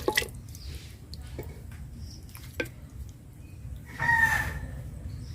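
A chicken calls once, a short pitched call about four seconds in, over a few faint clicks and knocks.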